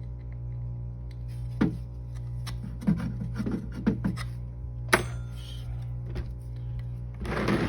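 A few sharp clicks and knocks from handling a wooden deep beehive frame and a nail, over a steady low hum, with rustling starting near the end.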